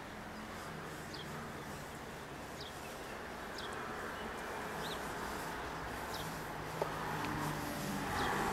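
A small bird chirping about once a second over a low, steady hum.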